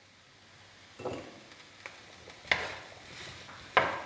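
Wooden spatula stirring and scraping diced apples and raisins in a frying pan, three sharp strokes about a second and a half apart, over a faint sizzle of the fruit cooking in melted butter.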